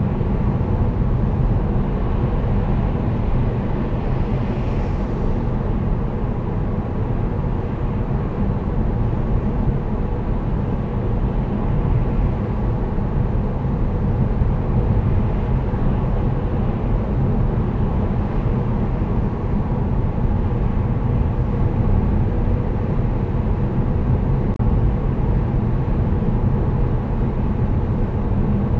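Steady in-cabin drone of a 2008 Saab 9-5 2.3t cruising at about 77 km/h: tyre and road noise mixed with the hum of its turbocharged four-cylinder engine, heard through the dash cam's microphone inside the car.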